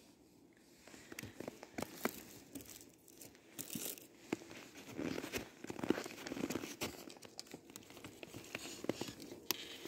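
Clear plastic cover sheet over a beehive's frames crinkling and rustling in irregular crackles as it is handled and peeled back off the top bars.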